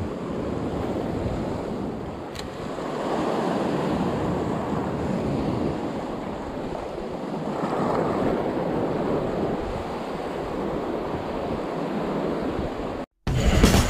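Sea surf washing against a rocky shore with wind blowing across the microphone, swelling and easing a couple of times. The sound cuts off suddenly near the end.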